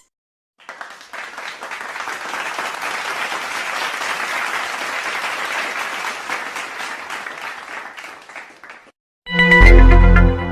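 Applause from a crowd that swells and then fades away over about eight seconds. About nine seconds in, a loud musical sting with a deep bass cuts in.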